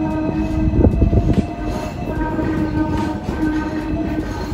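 Hong Kong double-decker tram running along its street tracks, heard from on board. There is a steady pitched hum over a rumbling ride noise, with a cluster of rattles and knocks about a second in.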